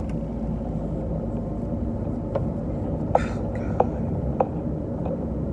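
Steady low rumble of a running car heard from inside the cabin, with a few faint sharp ticks and a brief hissing burst about three seconds in.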